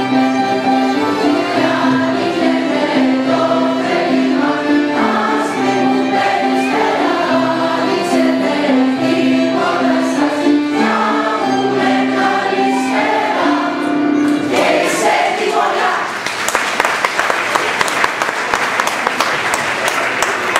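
A mixed choir singing a Greek Christmas carol (kalanda) with violin and keyboard accompaniment, ending on a held note about 14 seconds in. Applause follows to the end.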